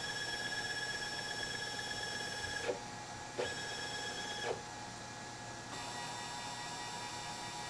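Stepper motors of a Probotix Fireball V90 desktop CNC machine driving the lead screws as the axes jog: a steady whine of several held tones. The tones change, with short pitch swoops, about three, three and a half and four and a half seconds in, and again near six seconds, as moves start and stop.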